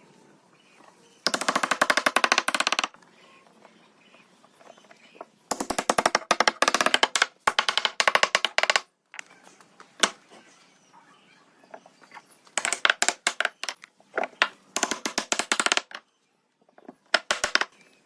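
Power tool hammering rapidly in five bursts of one to three seconds each, with short pauses between.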